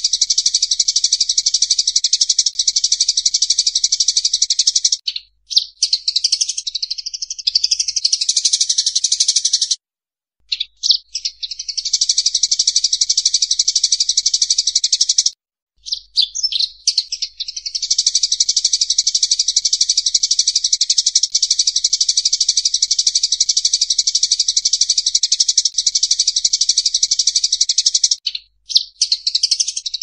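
Sparrows squabbling: a dense run of fast, shrill chattering chirps. It breaks off briefly about 5, 10, 15 and 28 seconds in, and looser, scattered chirps follow each break before the chatter picks up again.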